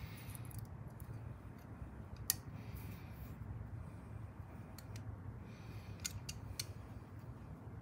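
Scattered light clicks and snips of small parts and tools being handled, with one sharper click about two seconds in, over a low steady hum.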